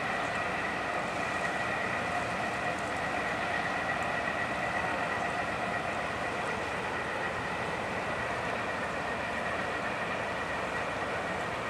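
Tugboat diesel engines running under load as the tugs push against an aircraft carrier's hull: a constant mechanical drone with a steady high whine, over churning propeller wash.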